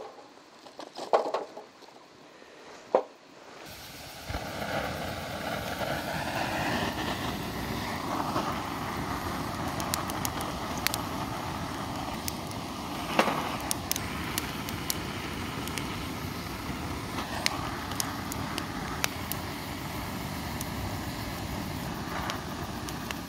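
Wood fire burning: a steady rushing roar with frequent sharp crackles and pops, starting suddenly about four seconds in.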